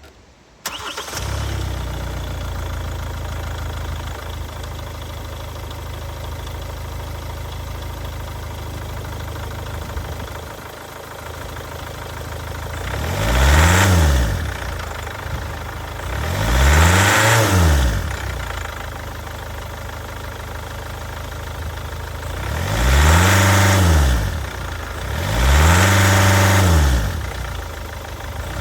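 Hyundai i40's 1.7-litre D4FD four-cylinder diesel engine starting under a second in and idling, then revved briefly four times, each rev rising and falling in pitch. The engine has a defective head gasket that lets water into the oil.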